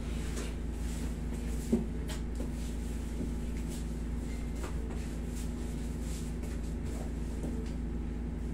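Steady hum of a wall-mounted air conditioner, with faint scattered clicks and rustles of movement and a short knock a little under two seconds in.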